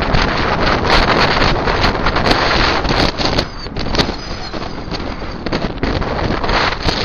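Wind buffeting the microphone: a loud, gusty rush of noise that eases somewhat about three and a half seconds in.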